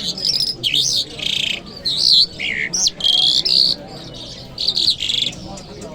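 Lark singing a varied song of quick chirps, buzzy trills and rising and falling whistled glides, delivered in short phrases with brief pauses.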